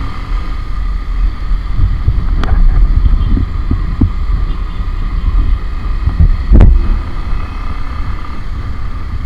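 Wind buffeting the microphone of a motorcycle-mounted camera while riding, over the motorcycle's engine noise. Two sharp knocks, about two and a half seconds in and about six and a half seconds in, the later one the loudest.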